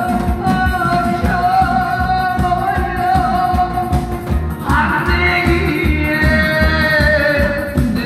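Amplified Korean pumba-style song: a singer's held notes over a steady beat, with buk barrel drums struck in time. About halfway through, the voice starts a new, higher phrase.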